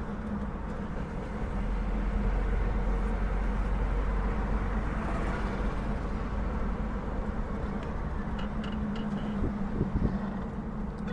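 Road and engine noise heard inside a moving car's cabin: a steady low rumble that grows a little louder about two seconds in, with a couple of short knocks near the end.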